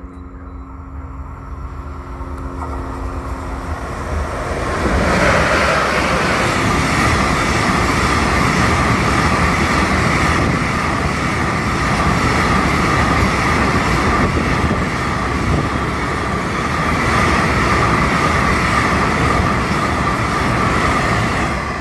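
Train passing close by. Its noise builds over the first few seconds, then stays loud and steady as rolling noise with a high tone held through the pass.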